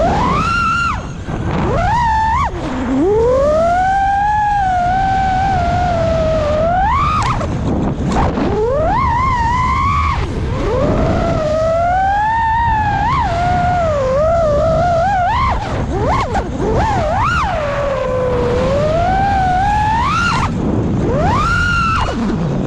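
FPV freestyle quadcopter on a 6S battery, its Newbeedrone Flow brushless motors and HQProp J37 props whining, the pitch sweeping up and down without pause as the throttle changes, over a rushing haze of air noise.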